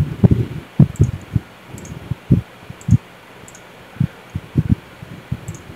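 A computer mouse being clicked: about a dozen short, irregular clicks that come through as dull taps, with a pause of about a second in the middle.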